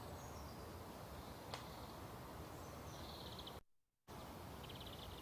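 Faint steady background hiss with a few brief high chirps and a single click. The sound drops out to complete silence for a moment about three and a half seconds in.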